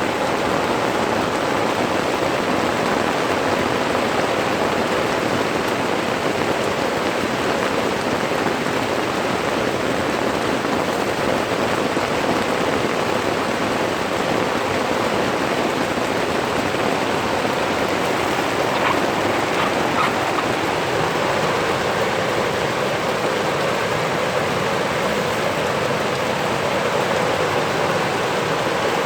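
Torrential rain falling steadily, a loud, even hiss of the downpour with no let-up.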